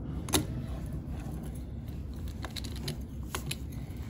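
Screwdriver turning the screw into the shaft coupler of an Echo PAS-280 split-shaft trimmer by hand, with a few small metallic clicks scattered through, several of them near the end, as the screw is worked into the hole in the new shaft.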